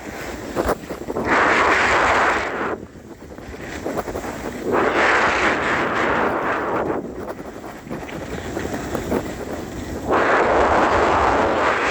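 Edges carving across packed snow in turns: three long scraping surges of about two seconds each, a few seconds apart, with wind on the microphone in between.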